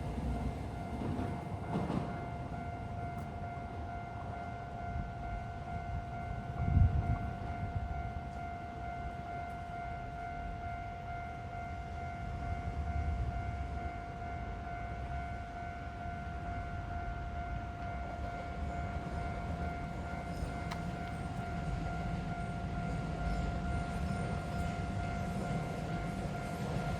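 Level crossing warning signal sounding a steady, ringing tone throughout, over the low rumble of a tram on the line, with a low thump about seven seconds in.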